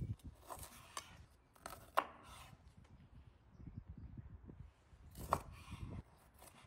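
Kitchen knife cutting raw chicken wings apart at the joints on a metal board: a few separate cuts with sharp clicks of the blade against the board, the loudest about two seconds in and another after five seconds.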